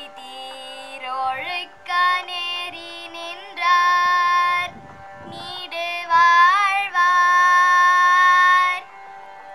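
A young girl singing a melody with long held notes over a steady musical accompaniment. The singing and music stop shortly before the end.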